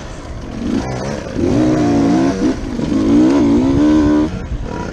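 Dirt bike engine running under throttle while riding, its pitch rising and falling as the throttle is opened and eased. It gets louder from about a second and a half in.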